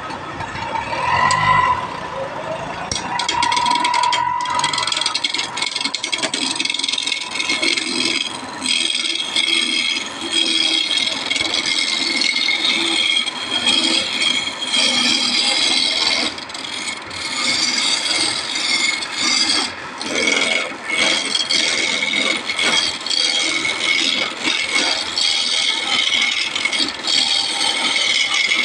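Wood lathe turning a squared wooden blank while a hand-held gouge cuts into it: continuous loud scraping and rattling chatter as the blank is roughed down from square to round.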